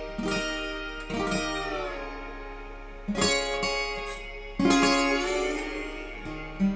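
Guitar played solo, about five chords struck a second or two apart and each left to ring out, between sung lines of a folk song.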